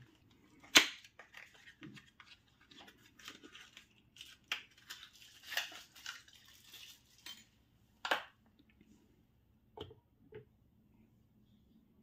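Handling of TPMS sensors and small tools on a silicone bench mat: scattered clicks, light knocks and rustling as a sensor is put back and another picked up. The sharpest knocks come about a second in and about eight seconds in.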